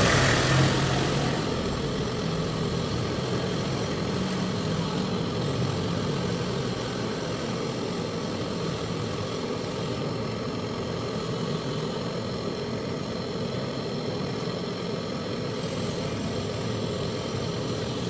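Handheld butane canister torch burning with a steady hiss while it heats the copper pipe at a refrigerator compressor for brazing.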